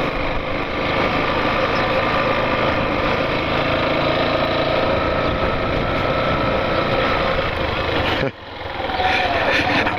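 Yamaha Factor 150 motorcycle's single-cylinder engine running steadily while ridden at low speed. The sound dips sharply for a moment a little after eight seconds in, then the engine note returns.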